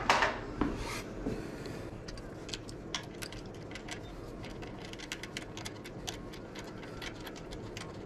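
Ratchet wrench clicking in quick, uneven runs as the brake caliper bolt is tightened, after a short rustle of handling at the start.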